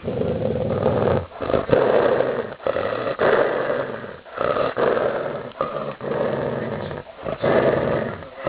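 Dalmatian growling in a run of about six drawn-out growls, each a second or so long, with brief pauses between.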